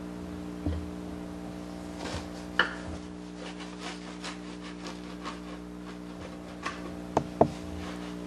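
A knife sawing back and forth through a crusty, freshly baked loaf of garlic bread on a wooden cutting board, the crust rasping with each stroke. A few sharp knocks stand out, two close together near the end, over a steady low hum.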